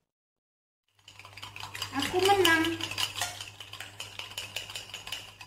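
Dalgona coffee mixture (instant coffee and sugar) being whipped by hand with metal cutlery: a fork beating rapidly against the inside of a glass and a utensil scraping a plate, a fast run of clinks and scrapes that starts about a second in. A brief voice is heard near the middle.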